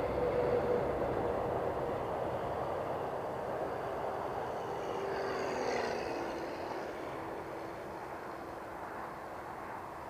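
Electric FMS T-28 Trojan RC model airplane flying overhead, its motor and propeller drone steady. About six seconds in it makes a low pass: the tone rises in level and drops in pitch as it goes by, then fades as the plane flies off.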